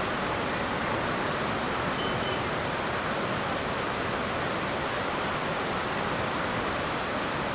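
Swollen river in flood rushing fast and full, a steady, even noise of high water with no let-up.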